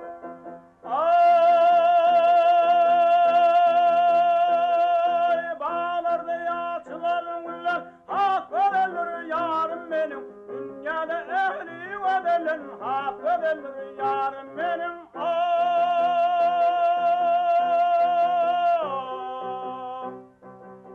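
A man singing wordless, long-held notes over instrumental accompaniment: one long sustained note about a second in, ornamented wavering runs in the middle, and a second long held note a little past the middle that drops in pitch near the end.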